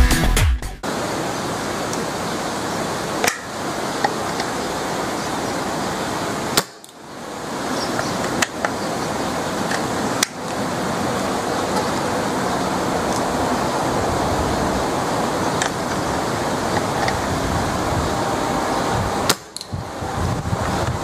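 Wind rushing steadily on the microphone, with three sharp shots from a homemade air-powered rifle, about a third of the way in, around the middle and near the end, and a few lighter clicks between them.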